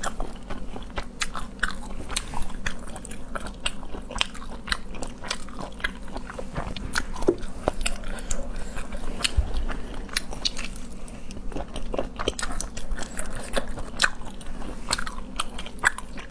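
A person chewing and biting seafood close to the microphone, with many irregular sharp crunches and clicks.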